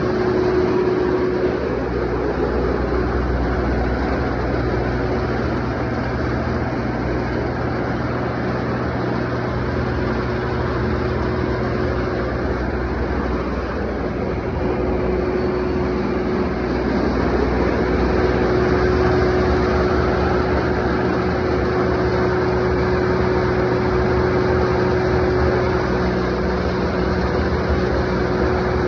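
Isuzu diesel engine of a 40 kW three-phase generator running steadily at constant speed, with a steady whine over the engine hum. The whine fades for a while in the middle and comes back.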